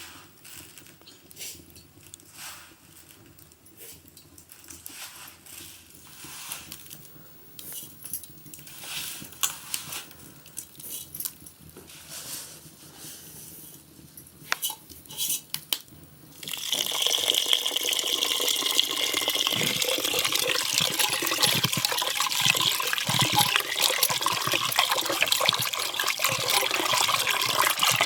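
A few faint clicks and knocks, then about sixteen seconds in water suddenly starts running in a steady stream, as from a tap or spout into a vessel, and keeps running.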